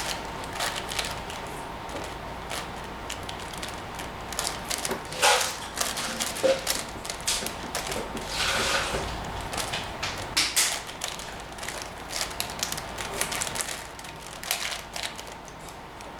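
Plastic clicking and rattling of a 5x5 Rubik's cube (Professor's cube) as its layers are turned by hand, in quick irregular runs of clicks during edge pairing.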